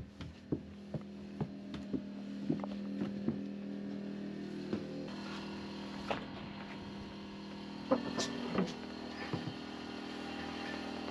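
Portable generator running with a steady hum, which grows a little louder about five seconds in, under footsteps knocking on wooden boards roughly twice a second.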